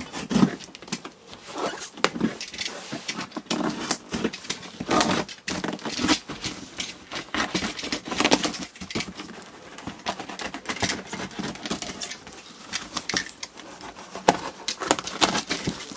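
Packing tape being picked at, peeled and torn off a cardboard box, with the cardboard flaps scraping and rustling in an irregular run of crackles. Near the end a utility knife slices through the tape.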